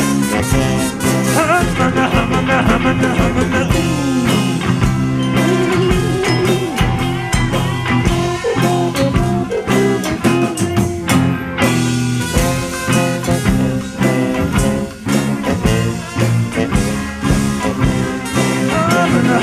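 Instrumental band music with a steady beat and a swing or blues feel, sustained notes with a few sliding ones over it.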